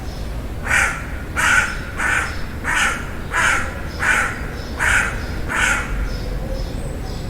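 A crow cawing: a run of about eight caws, roughly one every 0.7 s, then a couple of fainter calls near the end, over a steady low rumble.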